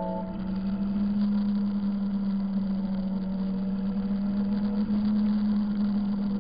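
Motorcycle engine running at a steady cruise, heard from the bike carrying the camera as a steady, even drone with road noise underneath.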